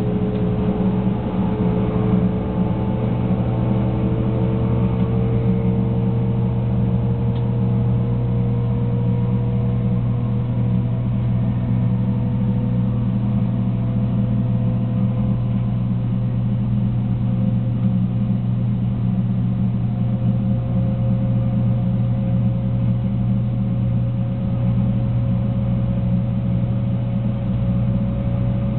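Inside the cabin of a 300 series Shinkansen running on the line: a steady low rumble and hum, with a fainter whine that slowly rises in pitch as the train gathers speed.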